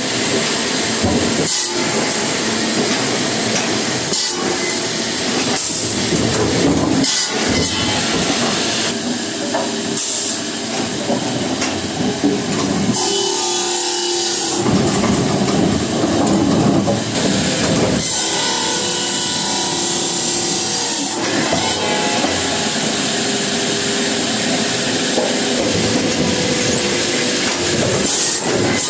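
Wood-processing machinery running, a continuous loud mechanical rumble and clatter with irregular knocks throughout.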